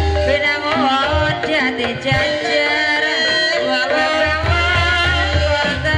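Live Javanese gamelan playing ebeg dance music, joined by a drum kit: drums, gongs and metallophones under a singing voice with a bending melody.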